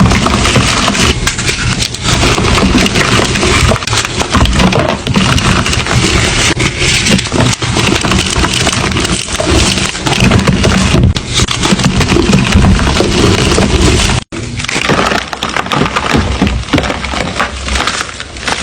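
Gym chalk being crushed and crumbled, a dense, continuous crunching and crackling, broken by a brief gap about 14 seconds in.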